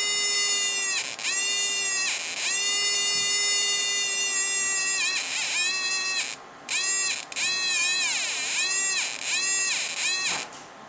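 Arduino Uno noise maker sounding a buzzy electronic tone through a small speaker, its pitch read from a photoresistor while a hand shades the sensor. The tone holds one pitch but keeps breaking off, dipping in pitch at each break, and turns into quicker choppy notes after about six seconds.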